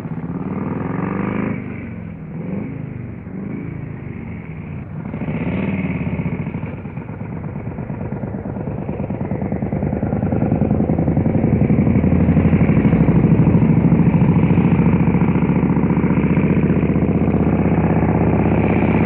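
Motorcycle engine revved in several quick blips, its pitch rising and falling, then running steadily and louder through the second half.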